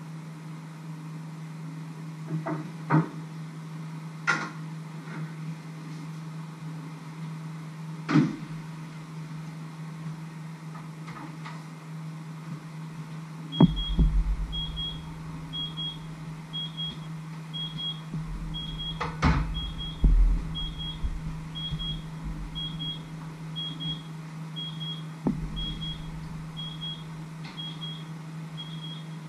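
Kitchen work: scattered knocks and clatter of cookware and utensils over a steady low hum. From about halfway, a short electronic beep repeats about once a second.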